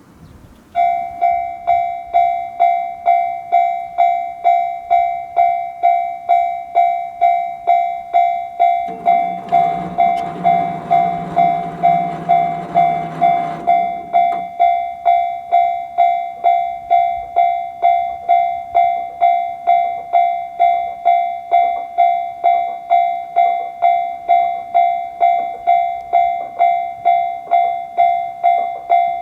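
Japanese level-crossing warning bell starting up just under a second in and ringing its steady 'kan-kan' ding about twice a second. From about nine seconds in, a low rushing noise joins it for about five seconds and cuts off sharply.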